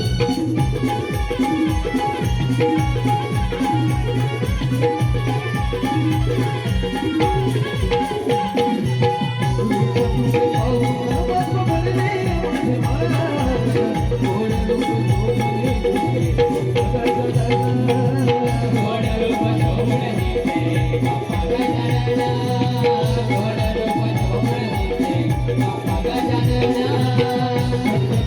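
Instrumental interlude of Konkani naman folk devotional music: a steady, regular drum beat with rattling percussion over a held low drone and sustained higher melody notes.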